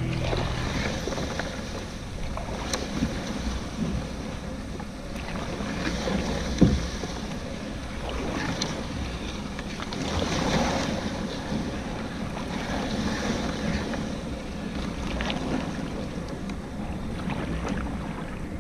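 Small boat under way, water splashing against the hull, with wind buffeting the microphone.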